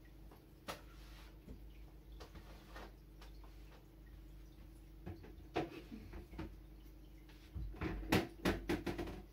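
Scattered clicks and knocks from a plastic jug and other household items being handled, building to a short run of louder plastic clattering over the last two seconds.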